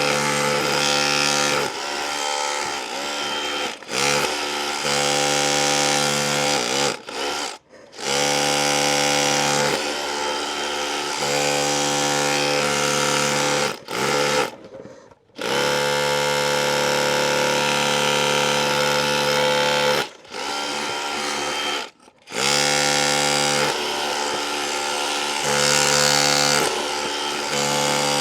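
DeWalt DCH263R2 cordless rotary hammer chiselling in hammer-only mode, driving the chisel deeper into a wall. It runs in long bursts with about five brief stops.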